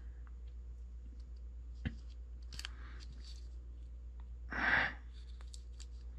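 Small handling noises of fingers pressing painter's tape and a metal ramrod against an anvil: a sharp click, faint ticks and a short rustle about four and a half seconds in, over a steady low hum.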